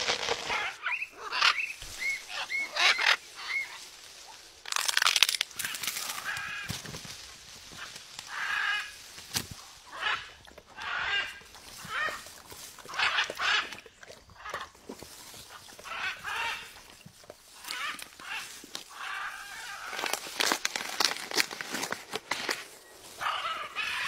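Blue-and-gold macaw biting and chewing at a green coconut: short rasping bursts about once a second, mixed with sharp clicks.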